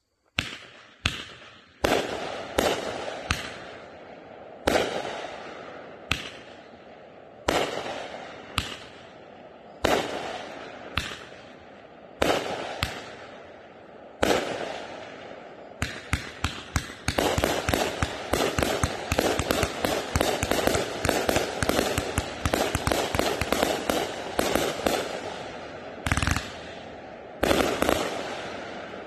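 Raccoon Fireworks Bird of Paradise 42-shot, 500-gram cake firing. Sharp single bangs come about one a second for the first half, then a dense run of rapid pops and crackle lasts about ten seconds, and two more bangs sound near the end.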